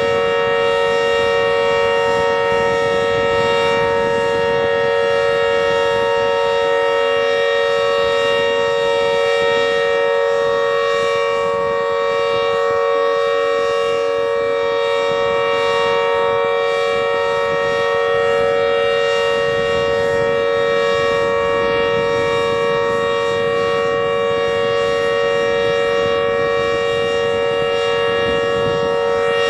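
Emergency warning siren holding a loud, steady tone that neither rises nor falls, several pitches sounding together as a chord over a low rumble.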